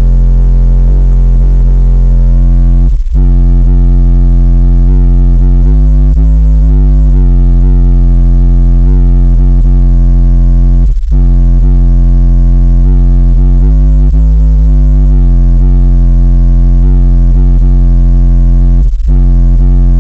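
Music played loud through a car audio system, dominated by deep bass from a 10-inch Memphis subwoofer driven by an 800-watt amplifier, heard inside the car's cabin. The sound dips briefly three times, about eight seconds apart.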